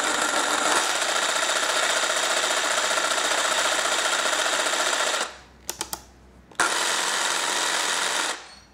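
Hitachi 18-volt cordless jigsaw running with no load, its blade rocking back and forth in orbital mode. It stops about five seconds in, a few clicks follow, then it runs again for under two seconds and stops just before the end.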